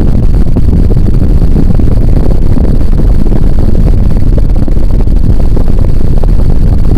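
Casablanca Hermosa 52-inch ceiling fan with its direct-drive motor running. Its airflow buffets the microphone as a loud, steady, low rumble of wind noise.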